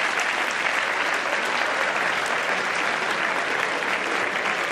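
Studio audience applauding, dense steady clapping.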